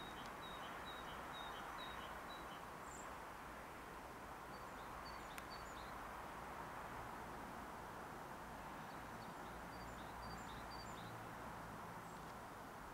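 Small birds chirping, short high notes repeated in quick series, over a faint steady background noise with a low hum.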